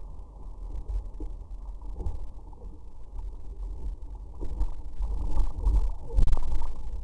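Muffled rumble of wind and rushing water on a surfboard-mounted camera as the board planes along a breaking wave, getting louder about two-thirds of the way through.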